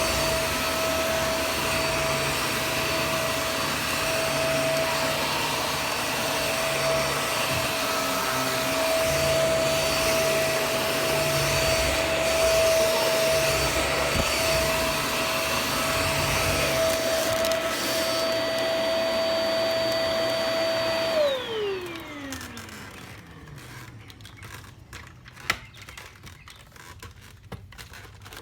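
Shark Vac-or-Steam vacuum motor running with a steady high whine, then switched off about three-quarters of the way through, its pitch falling as the motor winds down to a stop. A few faint clicks follow.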